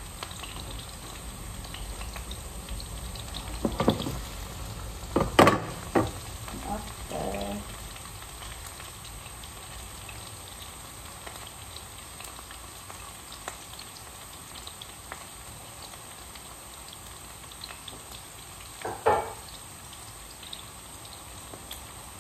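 Onion and garlic sautéing in hot oil in a pan with a steady sizzle. A few sharp clanks of the stirring utensil against the pan, the loudest about five seconds in, and another near the end.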